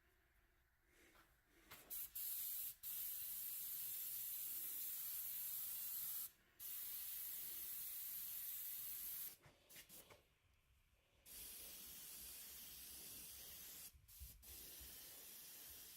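Paint being sprayed: a steady hiss in several bursts of two to four seconds, with short pauses between them.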